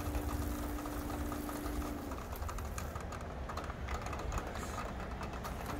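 12-volt soft wash pump (a 5.5 gallon-a-minute unit) running with a steady hum while it sprays a stream through the hose. The hum drops out about two seconds in, leaving rapid light ticking over low wind rumble on the microphone.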